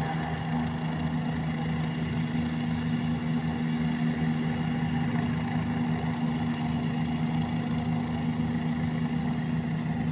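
Helicopter hovering overhead: a steady low engine hum over a fast, even beat of the rotor blades, unchanging throughout.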